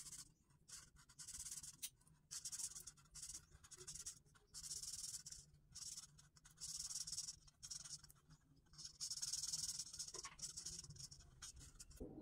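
Broad-tipped Touch alcohol marker scratching across paper as it colours in, a soft high hiss in repeated back-and-forth strokes of about a second with short breaks between.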